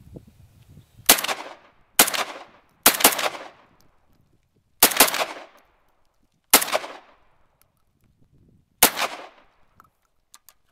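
Molot Vepr-12 semi-automatic 12-gauge shotgun firing six shots at an uneven pace, three fairly quick ones then three spaced out, each trailing off in a short echo. A couple of faint clicks near the end.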